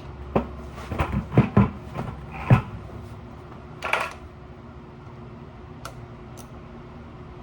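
A quick run of sharp knocks and clanks, about eight in the first three seconds and one more around four seconds in, from handling motorcycle parts and tools. A steady low hum runs underneath.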